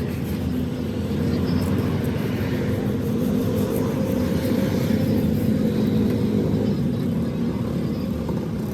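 Lathe running with a steady low machine hum while turning a conveyor drum roller.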